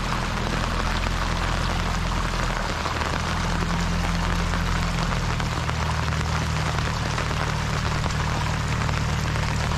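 Heavy rain falling steadily, an even, dense hiss with a steady low rumble underneath.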